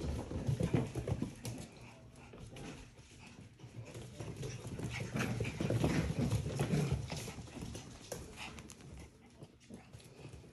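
Portidoodle puppies (Portuguese Water Dog × Poodle, about six weeks old) scampering across a wooden floor: a quick, irregular patter of small paws and claws tapping.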